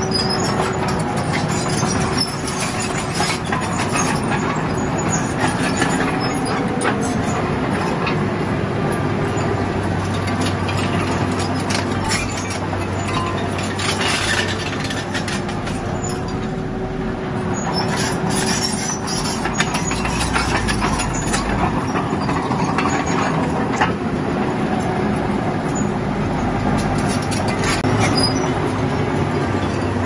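Small crawler bulldozer at work: its diesel engine running steadily under load, with the steel tracks clanking and squealing and rock scraping under the blade.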